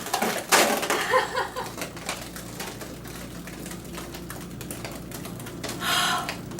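Green slime dumped over a person, a brief wet rush about half a second in, followed by a long run of irregular dripping and splattering ticks as it runs off. A short vocal sound comes near the end.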